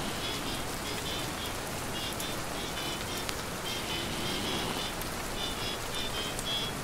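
Steady rain pattering against a window, an even hiss of many drops. Short, faint, high tones come and go over it.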